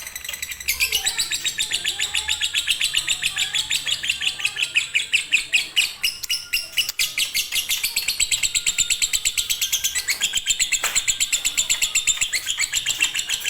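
Lovebird singing a long, unbroken konslet-style chatter: a fast, evenly repeated run of high, shrill chirps that keeps going without pause.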